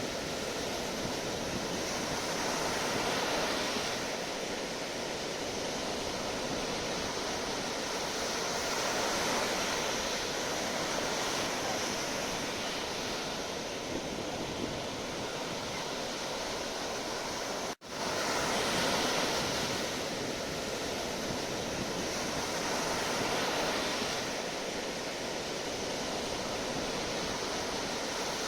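Sea waves breaking and washing on a shore: a steady rushing surf that swells and eases every few seconds. The sound cuts out for an instant about two-thirds of the way through.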